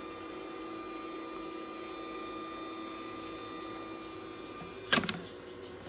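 Compressor ice cream maker running with a steady mechanical hum made of several fixed tones. A sharp clack comes about five seconds in, and one of the higher tones drops out after it.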